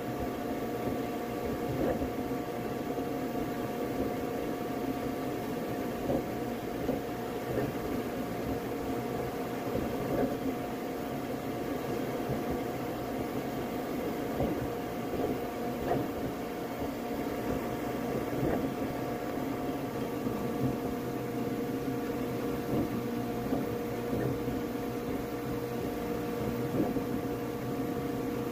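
Flashforge Adventurer 5M Pro 3D printer at work: a steady whir of its fans with the hum of its stepper motors, holding several steady tones. One lower tone grows stronger about two-thirds of the way through as the print head's moves change.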